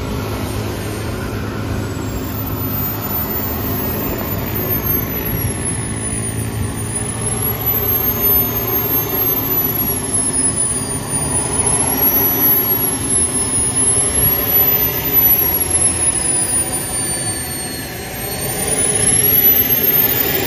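Kingtech K210 G4 model turbine engine of a large radio-controlled BAE Hawk jet running at low power while taxiing. Its high whine wanders up and down in pitch, dips briefly near the end, then swells again.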